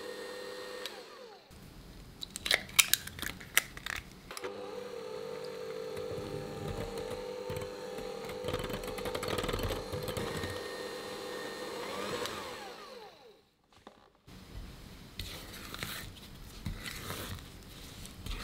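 Electric hand mixer running steadily, its beaters whirring through creamed butter in a glass bowl. It pauses about two seconds in for a few sharp clicks and knocks, then runs again. Near the end it gives way to softer scraping sounds.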